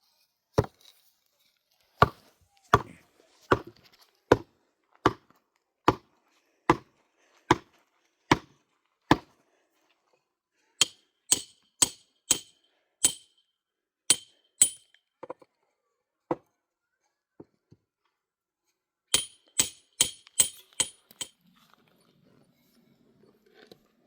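Repeated blows with a hand tool: about ten dull chopping strikes at a steady pace, one every 0.8 seconds or so, then quicker runs of ringing, metallic-sounding strikes.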